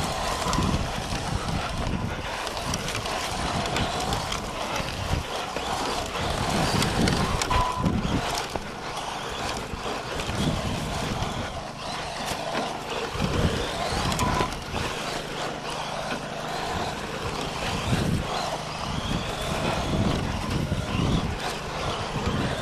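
Radio-controlled rally car driving an off-road stage: a continuous irregular crunching and rattling of tyres and chassis over dirt and gravel, with no clear motor tone.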